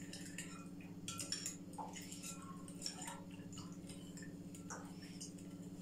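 A spoon stirring sugar into warm milk in a bowl, giving scattered light clicks and ticks against the bowl over a steady low hum.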